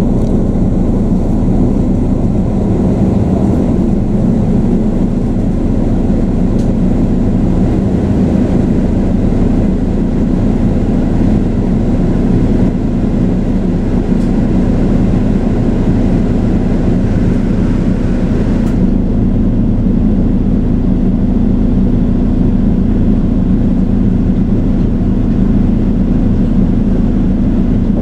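Steady engine drone heard inside a bus, with a strong constant hum. A lighter hiss above it stops about two-thirds of the way through.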